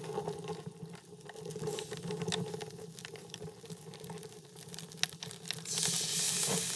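Wood fire burning, with irregular small crackles and pops from the logs; a hiss of flame grows louder near the end.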